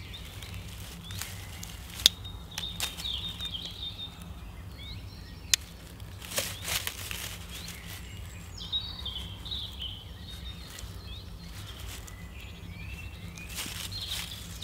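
Handling noise from a bow-drill fire set being fitted together on a tree stump: rustling with a few sharp clicks and knocks, two of them about two and five seconds in.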